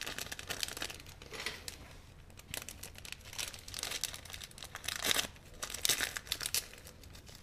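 Irregular crinkling and rustling of something handled by hand, coming in bursts that are loudest about five to six seconds in.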